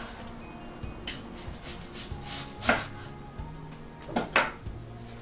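Kitchen knife slicing through an onion onto a wooden chopping board: a few separate cuts, with the sharpest ones just past halfway and two close together near the end. Soft background music plays underneath.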